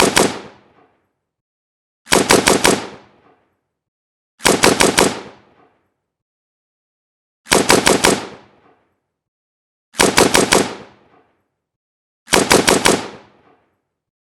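AK-47 assault rifle firing short fully automatic bursts of about five rounds each, six bursts two to three seconds apart, each shot sharp and each burst trailing off in a brief echo.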